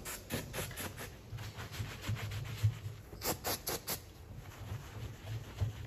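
Aerosol spray can squirted in several short hissing bursts, a quick run of four just past three seconds in, with a microfibre cloth rubbing and wiping on a car's painted roof.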